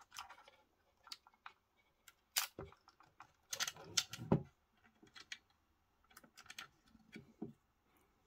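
Light clicks, taps and scrapes of a threaded metal SMA antenna connector and its cable being handled and pushed through the hole in a mini PC's metal chassis. The clicks are scattered and irregular, with a louder cluster a little past halfway.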